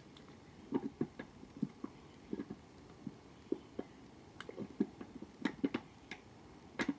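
Thick wet gunge poured over a person's head: irregular soft splats and plops as it lands and drips, starting about a second in and coming every half second or so.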